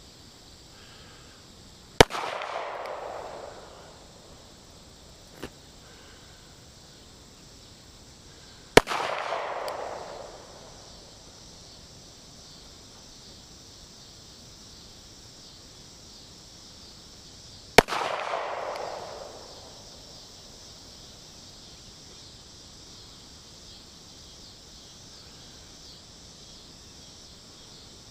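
Three single handgun shots, several seconds apart, each followed by an echo that dies away over about a second and a half. Crickets chirr steadily in the background.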